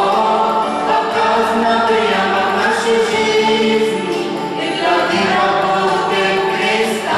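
A mixed choir of girls' and men's voices singing a hymn together, in long held notes.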